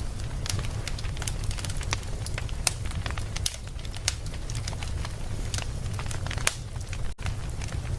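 Wood fire burning in a fireplace: frequent sharp crackles and pops over a steady low rumble of the flames, with a momentary dropout in the sound a little after seven seconds.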